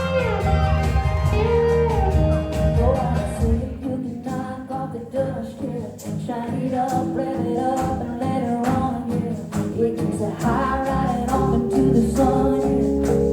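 Country song performed live by a full band: a woman singing lead over drums and guitar.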